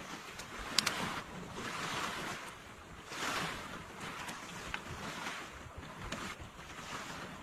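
Sea surf washing on the shore, its hiss swelling and falling back every second or two, with a few sharp clicks over it, the loudest about a second in.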